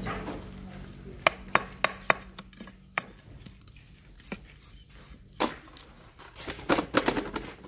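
Chef's knife knocking and scraping against a wooden chopping block while scaling and cutting a fish: a string of sharp separate knocks, with a quick cluster near the end.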